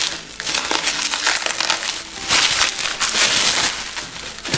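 Plastic bubble wrap crinkling and rustling as it is handled and pulled off a packaged item, in uneven bursts.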